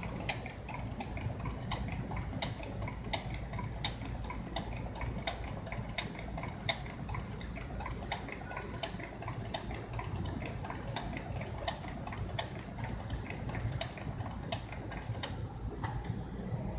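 Shoe-making machine running with a steady low hum and a sharp click repeating about every 0.7 seconds.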